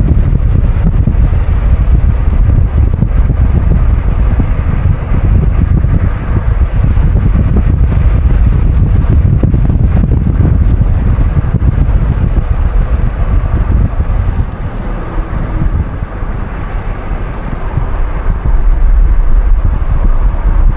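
Car driving along, with road and engine noise and wind buffeting the microphone. It eases off for a few seconds about three quarters of the way through, then comes back up.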